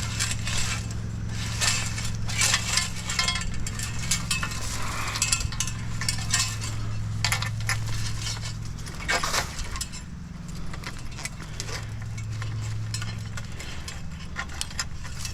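Scrap metal clanking and rattling again and again as it is handled and loaded, over an engine running steadily.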